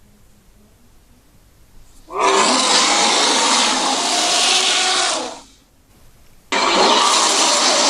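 Two loud, harsh roars from a custom dinosaur roar sound effect. The first starts about two seconds in and lasts about three seconds; the second starts near the end.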